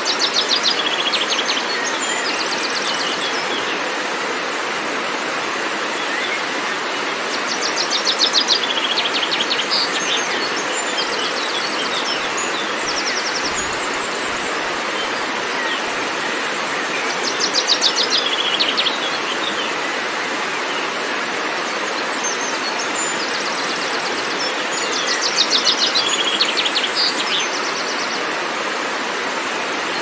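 Waterfall cascading over rocks, a steady rush of white water. Over it a songbird sings a fast trilling phrase four times, roughly every eight seconds.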